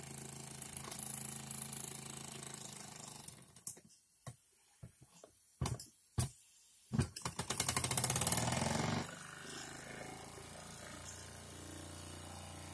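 Mamod toy steam traction engine's single oscillating cylinder running with a rapid mechanical beat. About four seconds in it almost stops, with only a few separate knocks, then picks up again with a loud run of fast beats for a couple of seconds before settling back to steady running.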